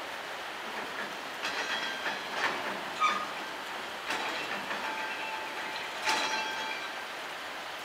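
Covered freight wagons rolling past, wheels clanking on the rails with brief, high metallic squeals several times, loudest about three seconds in.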